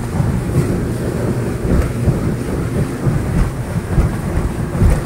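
A small boat's engine running steadily underway, heard as a loud low rumble, with wind buffeting the microphone.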